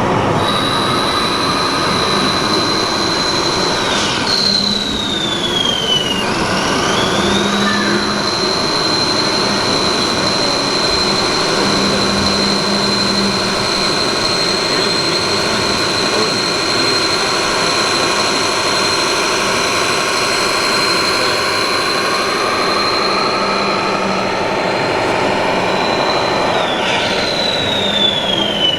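High-pitched electric motor whine of a radio-controlled model tractor running steadily, its pitch dipping and sliding back up twice as the motor slows and speeds up again, over a steady background noise.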